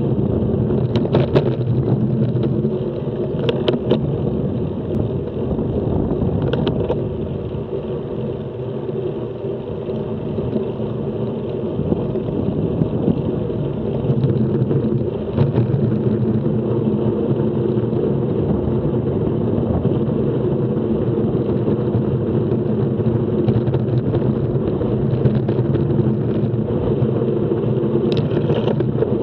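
Steady low wind and road noise picked up by a bicycle-mounted action camera riding at cycling speed, with a few brief knocks from the bike going over bumps.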